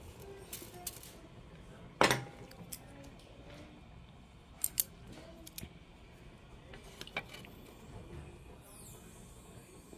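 A few sharp clicks and taps: a loud one about two seconds in, a quick pair near the middle, and another pair about seven seconds in. Wooden chopsticks knocking against the food and the barbecue griddle plate.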